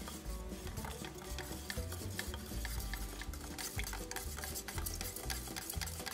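Paint being stirred in a metal paint can with a flat paint stick: wet swishing of the paint, with many irregular clicks and scrapes as the stick knocks and drags against the can's sides and bottom.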